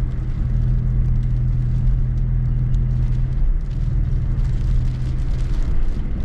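A car driving on a snow-covered road, heard from inside the cabin: a steady low engine and road drone that wavers a little past the middle.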